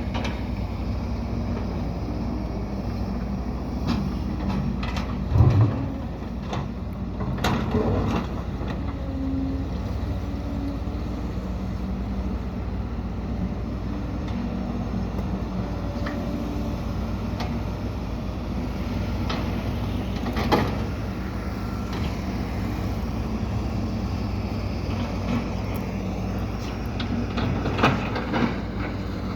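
Diesel engines of heavy earthmoving machines (excavators, dumper trucks, bulldozer) running steadily under work, with scattered knocks and clanks, the loudest a low thump about five seconds in.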